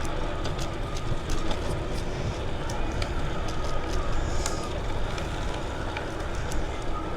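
Riding noise on a Trek Dual Sport bicycle: a steady rush of wind on the clip-on microphone and tyres rolling on the path, with scattered small clicks and rattles.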